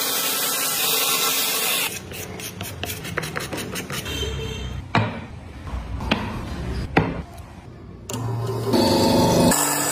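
A Makita chainsaw cutting into a block of wood for about two seconds, then quieter scraping tool work with two sharp knocks. Near the end a power tool's motor is switched on and runs.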